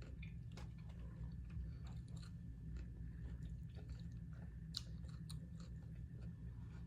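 A person chewing salad, with irregular small crunching clicks over a steady low hum.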